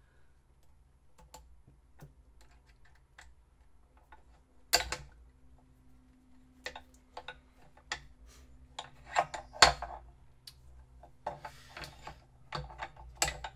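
Light clicks and sharp metallic knocks of an Allen key and small aluminum parts as a press-fitted pulley housing on a small CNC lathe is worked apart by hand. The clicks are sparse at first, with the loudest knocks about five and ten seconds in and a run of clicks near the end.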